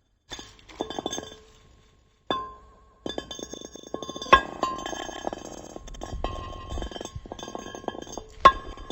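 Glass being struck and clinked, each sharp tap leaving a ringing, bell-like tone. There are a few loud strikes, the loudest near the end, with a busy run of rapid clinks in the middle.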